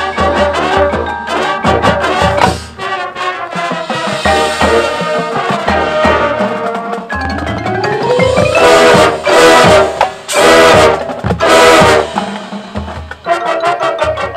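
Marching band playing a field show: brass with drums and marimba. A rising brass glide builds into three loud full-band hits with cymbal crashes, followed by a quieter passage.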